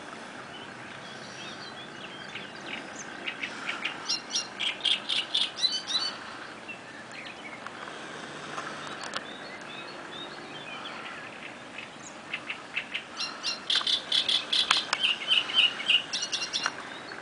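A songbird singing in two bouts of rapid, repeated notes, about three seconds in and again about twelve seconds in, over a steady background hush.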